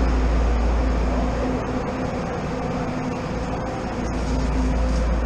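Diesel railcar standing at the platform with its engine idling: a steady drone with a low rumble and a hum, dipping slightly in the middle.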